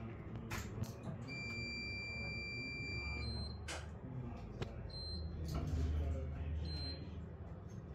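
Idling Mercedes-Benz M447hLAG six-cylinder turbo CNG engine of a Mercedes-Benz OC500LE bus, a low steady rumble heard from inside the cabin that swells a little about five seconds in. Over it, a long electronic beep sounds about a second in for two seconds, then short high beeps repeat about every second and a half, with a few sharp clicks.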